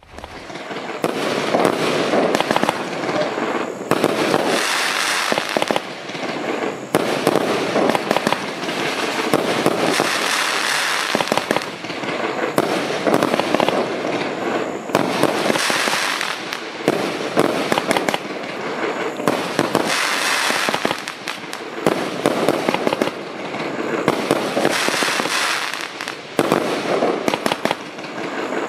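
Lesli Silver King Connect fireworks cake, a 144-shot 25 mm battery, firing continuously. Rapid launches and bursts overlap in a dense stream with no pause.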